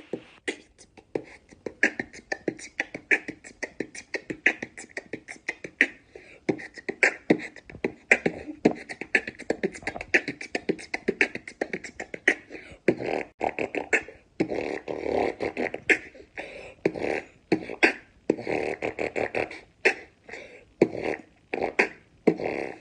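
A beatboxer performing a fast beatbox routine: rapid mouth-made kick, snare and hi-hat hits, with longer held vocal sounds woven in from about halfway through.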